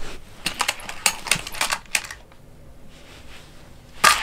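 Small plastic toy cars and track pieces clicking and clattering as a baby handles them on a plastic car track: a quick run of sharp clicks, a quieter pause, then one loud click near the end.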